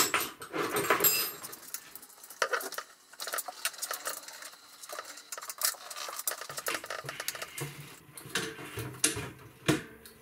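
Irregular metallic clinks and rattles of a bicycle side kickstand's clamp and bolts being handled and fitted onto the frame, loudest in the first second or so.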